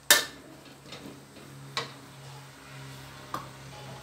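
A metal spatula clinking against a steel wok during stir-frying: three sharp clinks, the loudest right at the start, one a little under two seconds in and one near the end. A steady low hum runs underneath.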